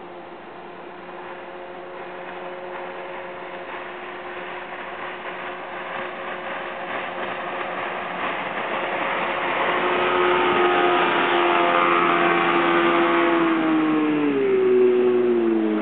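A 1975 Hewescraft jet boat's engine running steadily and growing louder; near the end its pitch drops, then starts to climb again.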